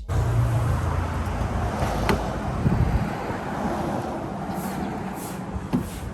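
Road vehicle noise: a car running amid traffic, a steady low rumble with a sharp click about two seconds in.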